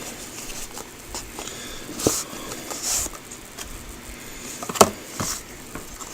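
Small cardboard model-kit box being handled and turned over: scattered light taps and rustles, with sharper knocks about two seconds in and again near five seconds.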